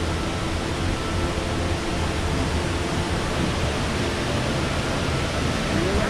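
Steady rushing of a waterfall: an even, unbroken hiss of falling water.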